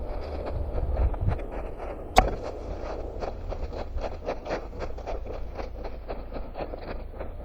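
Running footsteps on forest ground, about three footfalls a second, over a low rumble. One sharp snap about two seconds in is the loudest sound.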